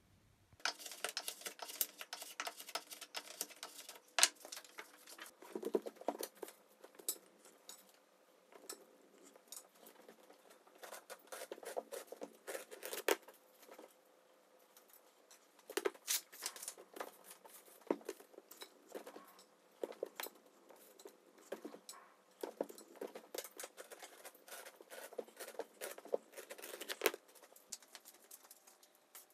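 Thin walnut wood veneer sheets rustling and crackling as they are handled, with irregular sharp ticks and clicks.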